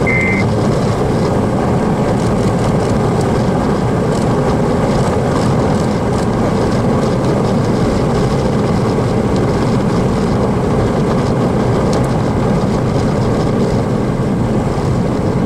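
Steady loud rushing noise inside a chase vehicle: wind and road noise, with a short high beep right at the start.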